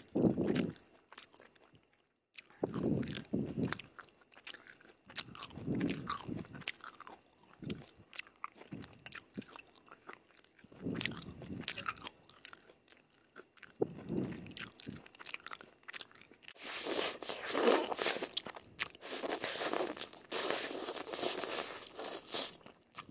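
Close-up eating of stir-fried yellow noodles in gravy: slurps of noodles every few seconds between wet chewing, then a longer stretch of louder, crisper chewing and mouth smacking a little over two-thirds of the way through.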